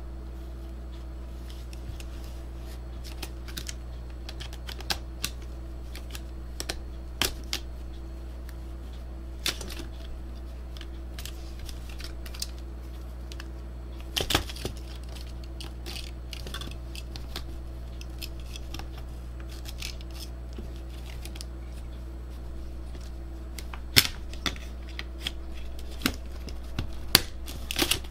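Scattered small clicks and taps of the plastic and sheet-metal parts of a slim DVD drive being handled and fitted back together, louder and more frequent near the end, over a steady low hum.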